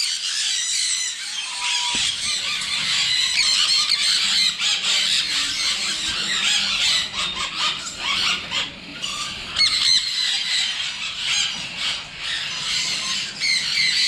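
A flock of sun conures screaming continuously, many shrill, overlapping calls at once.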